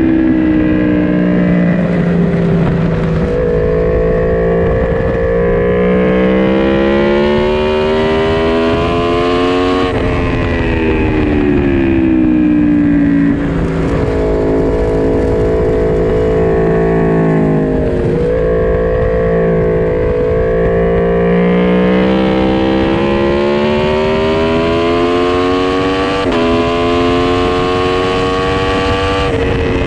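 A four-cylinder naked sport motorcycle's engine at full race pace. The revs climb in long pulls through the gears, drop sharply at each change at about 10, 13, 18, 26 and 29 seconds in, and fall back under braking.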